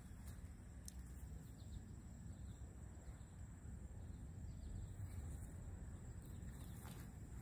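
Quiet outdoor ambience: a steady high-pitched insect drone from crickets over a low rumble, with a few faint clicks.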